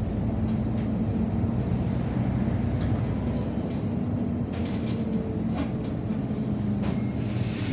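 Irisbus Citelis 12 m city bus heard from inside the cabin while driving: a steady engine drone with road noise and a few light rattle clicks.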